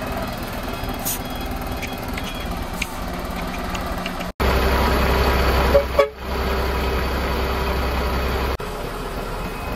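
Sinotruk concrete mixer truck's engine and drum drive running steadily. About four seconds in, a louder, deeper rumble starts suddenly, with two short sharp sounds around six seconds. Near the end it drops back to the lighter running sound.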